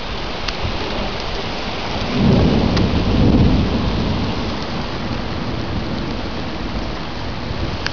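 Heavy rain pouring down in a steady hiss, with a low rumble of thunder swelling about two seconds in and fading over the next couple of seconds.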